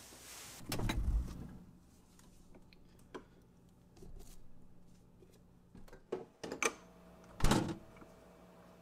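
Household handling sounds in a kitchen: a dull thump about a second in, then scattered small clicks and knocks, a quick run of knocks near the end and one sharp knock like a dish set down on a table, over a faint steady hum.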